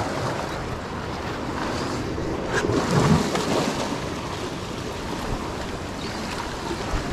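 Ocean surf washing onto the shore, with wind buffeting the microphone; a wave swells up and breaks louder about three seconds in.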